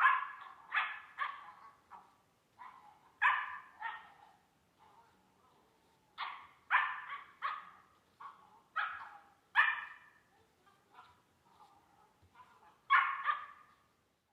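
Belgian Malinois puppy barking repeatedly, in single barks and quick runs of two or three, with pauses of a second or so between.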